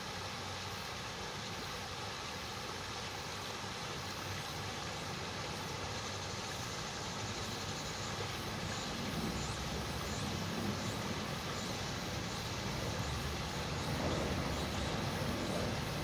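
Cicadas buzzing in a steady, harsh continuous drone. A low rumbling noise swells in the second half.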